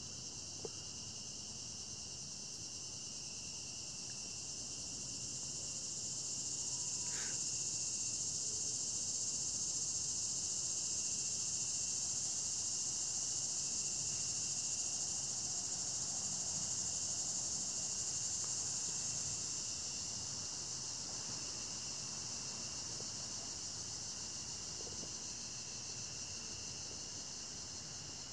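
Evening chorus of singing insects: a steady, high-pitched shrill with a thinner, lower continuous tone beneath it. It swells louder for about fifteen seconds in the middle, then eases back.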